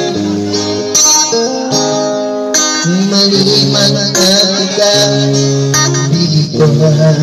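Electric guitar played through a portable amplifier speaker: a guitar solo of held notes stepping up and down in pitch over lower sustained notes.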